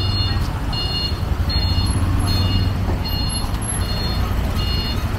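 An electronic beeper sounding a short high beep about every 0.8 seconds, over a steady low rumble and background noise.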